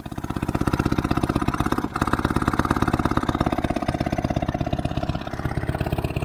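Vintage outboard motor running, with a rapid, even beat of firing pulses. It cuts in suddenly and briefly dips about two seconds in.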